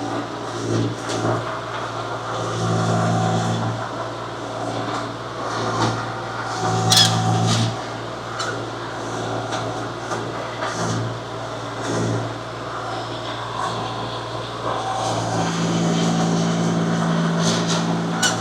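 Engine of a compact earthmoving machine running steadily, its hum swelling louder several times as it works, with a sharp clank about seven seconds in.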